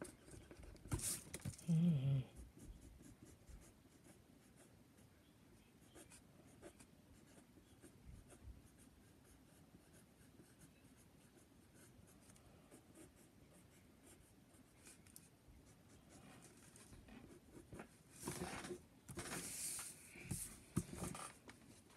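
Pencil scratching on paper while sketching: faint light strokes for most of the time, with louder, quicker strokes near the end. A short voice-like sound about two seconds in.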